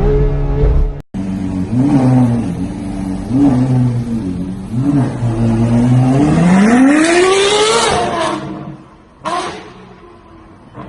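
Ferrari 812 Superfast's V12 engine revving: a few short blips of the throttle, then a long climb in pitch to high revs that falls away about eight seconds in. The sound drops out briefly about a second in.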